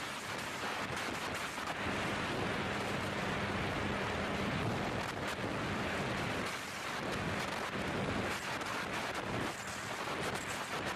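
Wind rushing over the microphone of a motorcycle at highway speed, about 85 on the speedometer, with a steady engine hum underneath. The rush swells and dips slightly but never stops.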